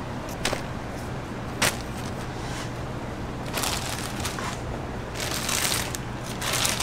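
Plastic wrap crinkling and rustling in several bursts as it is drawn over a tray of dough balls, after a couple of light clicks, over a steady low hum.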